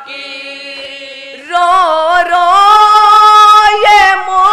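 Unaccompanied boys' voices chanting a noha, a Shia lament. A softer held note gives way about a second and a half in to one boy's voice singing loudly in long, drawn-out notes that bend slowly in pitch.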